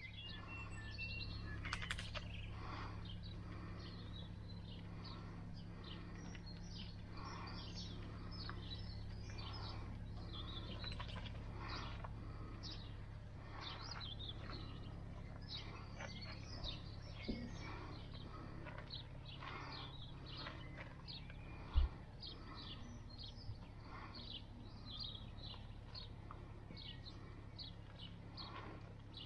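Songbirds chirping and singing all through, over a steady low hum and a person's breathing close on the microphone. One low thump sounds a little past twenty seconds in.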